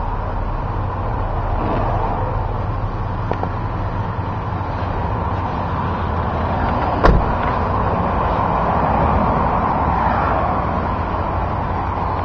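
Ford Explorer engine idling steadily, a low even hum, with one short sharp knock about seven seconds in.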